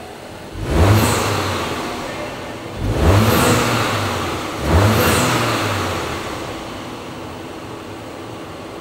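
2022 Audi A5 Sportback 40 TFSI's 2.0-litre turbocharged four-cylinder petrol engine revved three times, about two seconds apart. Each quick rise in pitch falls back to idle, and the engine idles steadily for the last few seconds.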